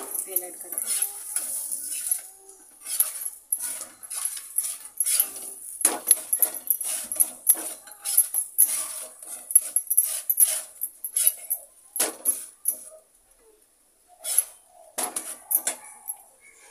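Metal spatula scraping and clinking against an iron tawa as a paratha is turned and pressed in oil, over a steady high sizzle that fades near the end.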